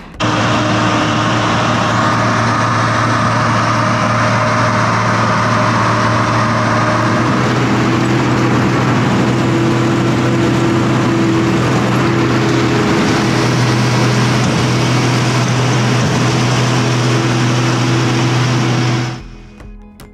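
Hop combine running steadily as it works along the hop rows, heard from the operator's seat: a loud, even machine drone with a strong low hum, a higher tone joining about seven seconds in. It cuts off sharply near the end.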